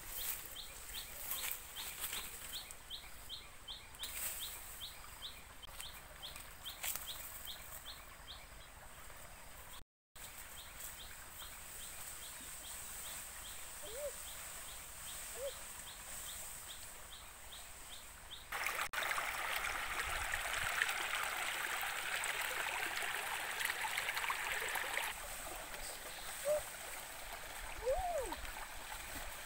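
Outdoor ambience: a high chirping that repeats about three times a second fills the first half and fades out. Then a shallow rocky stream starts rushing suddenly about two-thirds of the way in and stays loudest for several seconds, with a few short calls over it.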